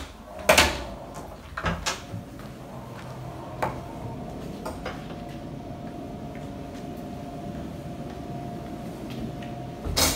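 A heavy wooden swinging door pushed open, banging about half a second in, with a few lighter knocks near two seconds in. A steady low hum with a faint high tone follows, and another thump comes near the end.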